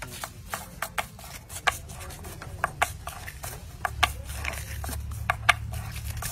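Foil and paper crinkling and sharp light taps on a wooden board as small firecrackers are hand-wrapped in foil paper, in irregular clicks about two or three a second. A steady low hum runs underneath and grows louder about four seconds in.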